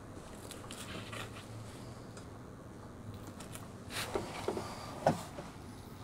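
Faint handling noise from gloved hands working a can of spray foam and its straw along a seam, over a faint low hum, with a few small clicks and taps about four seconds in and a sharper click about a second later.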